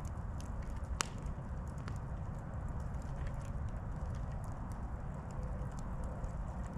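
Wood campfire crackling: scattered small pops and one sharp, louder pop about a second in, over a steady low rumble.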